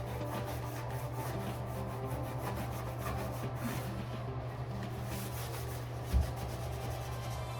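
Rubbing and scrubbing of a surface being wiped clean around a door stop's mounting, a steady scratchy rubbing, with a single low thump about six seconds in.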